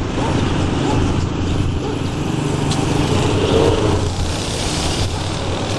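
Road traffic noise: the steady hum of vehicle engines running, with a low drone underneath.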